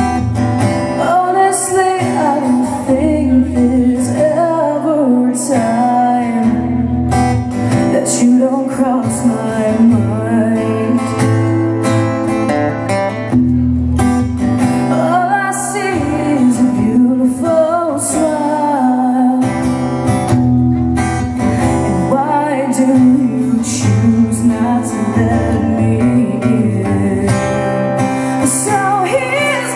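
A live song: an acoustic guitar is strummed while a woman sings over it.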